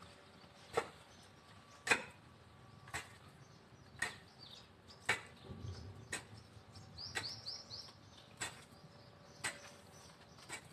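A pickaxe striking into garden soil about once a second, a steady rhythm of dull digging blows. A bird chirps several times in quick succession about seven seconds in.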